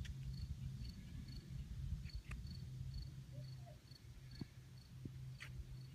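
A cricket chirping steadily, one short high note about twice a second, over a low steady hum and rumble.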